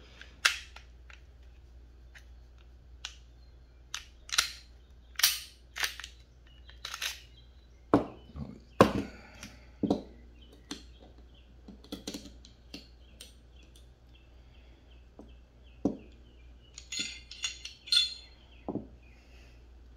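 Irregular metallic clicks and clacks of a Glock pistol being field-stripped by hand: the slide coming off the frame and the barrel and recoil spring being lifted out and set down on a cloth. A quick run of lighter clicks comes near the end.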